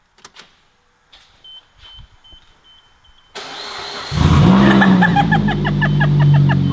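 A high steady beep, then the starter of a straight-piped 2009 Suzuki SX4 cranking and its 2.0-litre four-cylinder catching about four seconds in. It flares up and settles to a loud, steady high idle through the exhaust with the muffler and resonator deleted.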